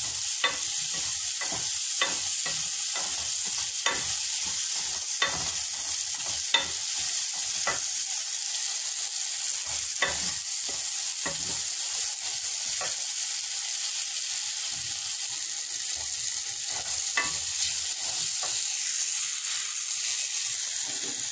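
Spice paste sizzling in hot oil in a metal pot as it is fried down, stirred with a wooden spatula that scrapes and knocks against the pot every half second or so, the strokes thinning out in the second half.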